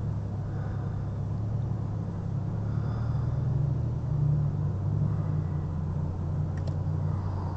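Car engine and road rumble heard from inside the cabin while driving: a steady low hum whose note changes about four seconds in, with one light click near the end.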